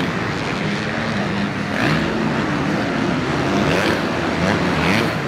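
Several motocross bikes racing, their engines revving up and down over and over, with more than one bike heard at once.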